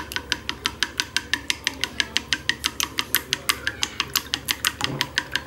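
Raw eggs being beaten with wooden chopsticks in a small ceramic bowl, the chopsticks clicking against the bowl in a fast, even rhythm of about seven strokes a second.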